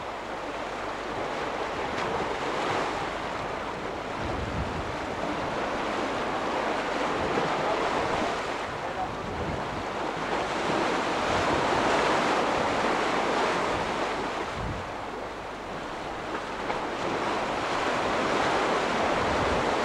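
Small sea waves washing and breaking against shoreline rocks, surging and easing every few seconds, with wind buffeting the microphone.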